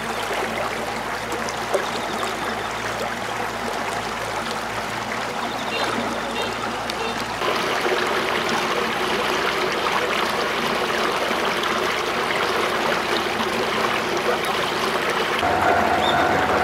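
Water running in a rice-paddy irrigation channel, a steady rush that becomes louder and brighter about seven seconds in. Near the end a steady humming tone joins it.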